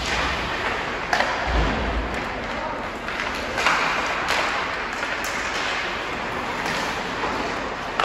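Ice hockey game din: a steady murmur of crowd and players, broken several times by sharp clacks of sticks and puck.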